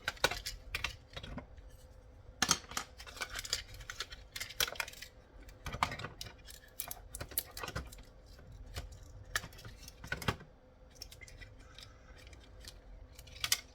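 Irregular small clicks, taps and clatter of plastic casing and small parts being handled as a radio control car handset is taken apart.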